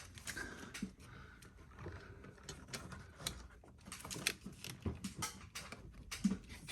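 Scattered small clicks and knocks as an LS engine's fuel rail and injectors are handled and pressed into place on one side of the intake.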